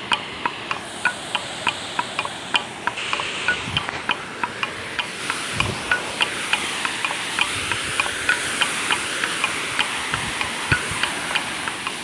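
Steady rush of falling water from a waterfall, with a background-music beat of regular woodblock-like taps, about three a second, running over it.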